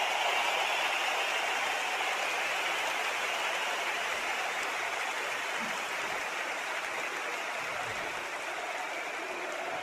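Large stadium crowd applauding and cheering in a dense, steady roar that slowly eases off.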